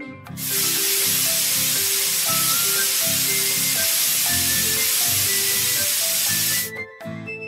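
Cartoon paint-sprayer sound effect: a loud, steady hiss of spraying paint that starts about half a second in and cuts off abruptly about a second before the end, over light background music.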